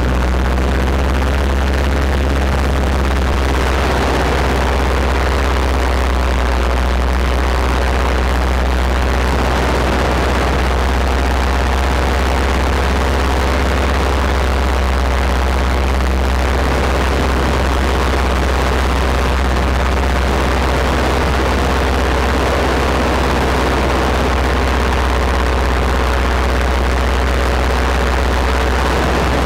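Paramotor engine and propeller running steadily in flight, a constant engine note with wind noise on the microphone.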